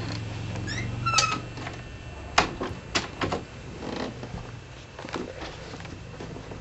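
A cat meowing briefly about a second in, followed by a few sharp knocks and clicks.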